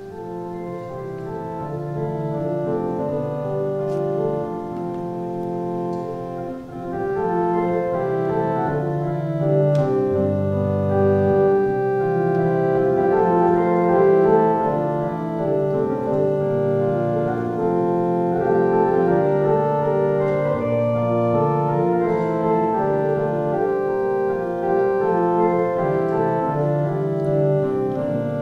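Organ playing a Scottish traditional hymn tune in held chords, purely instrumental with no singing.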